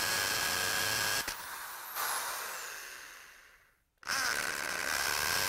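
Electric drill drilling mounting holes in the wall, its motor running with a steady whine. Just over a second in the sound drops; after about two seconds it slows and winds down to a stop, then the drill starts up again at full speed about four seconds in.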